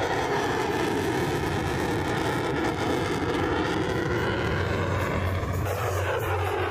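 An F-16 fighter jet flying a high-g display pass, its jet engine a loud, steady rush. The rush has a hollow, sweeping sound that falls in pitch over the first few seconds, and a fresh rising sweep begins about a second before the end.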